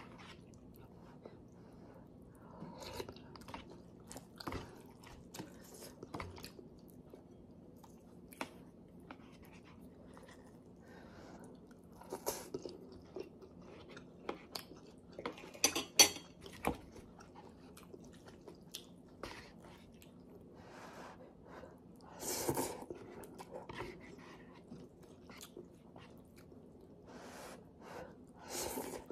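Close-up chewing and slurping of instant cup ramen noodles and broth, with scattered small clicks of the spoon and chopsticks. The loudest slurps come about halfway through and again about three-quarters through.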